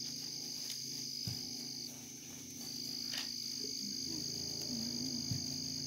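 Steady chorus of night insects, trilling in two continuous high tones, over a low steady hum. A single faint distant firecracker pop about three seconds in.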